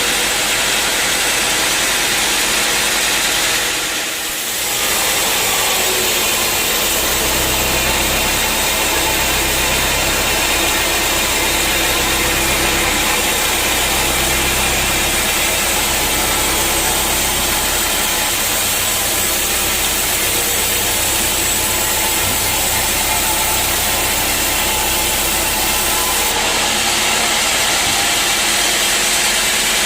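Sawmill bandsaw running loudly and steadily while cutting teak, with a brief dip about four seconds in. A deep hum from the drive sets in a quarter of the way through and stops shortly before the end.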